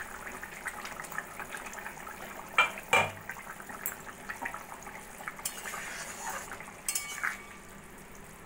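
Thin curry broth with potatoes and pointed gourd simmering and bubbling in an open kadai, a steady fine bubbling crackle. Two sharp metal clinks come about three seconds in, and a few more near the end as a metal spatula knocks the pan.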